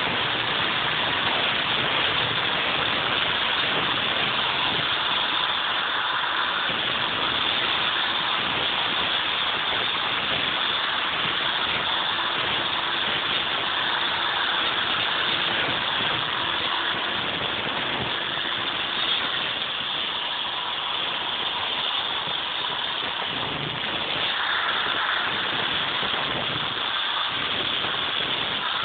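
Angle grinder with a diamond blade running without a break as it cuts out the mortar joints in brickwork for tuckpointing.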